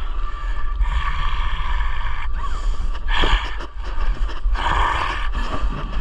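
Drum and bugle corps brass and percussion playing, with loud held chords that start and cut off sharply, under a heavy low rumble on the microphone.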